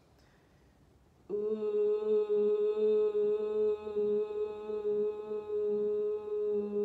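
A woman's voice toning a single long 'ooh' on one steady pitch, starting about a second in after a quiet breath in. It is vocal toning for the second chakra.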